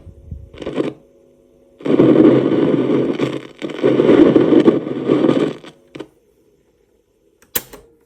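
Radiocorder 4000 CS radio cassette player's speaker hissing and crackling with loud static in bursts while a cassette spins, instead of playing the tape: the set's audio is faulty. A faint steady hum lies between the bursts, and a sharp click comes near the end.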